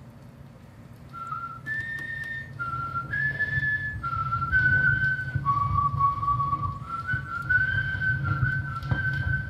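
Whistled melody played back from a flexi-disc sound sheet on a record player, starting about a second in: one clear note at a time, stepping up and down, over a steady low rumble.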